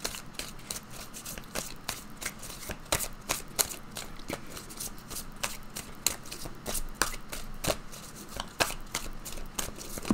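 A deck of oracle cards being shuffled by hand: a run of quick, irregular card clicks and flicks.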